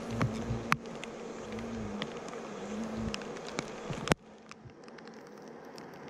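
Hornets buzzing on a rain-soaked sticky sheet, a wavering wingbeat drone that stops about three seconds in. A few sharp ticks sound over a steady hiss; the loudest comes about four seconds in, and after it the background is quieter.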